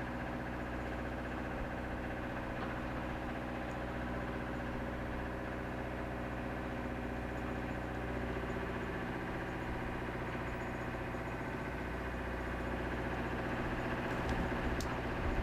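Tugboat's diesel engine running steadily, heard from on board, a low hum made of many even tones. Near the end a few low rumbling thumps come in over it.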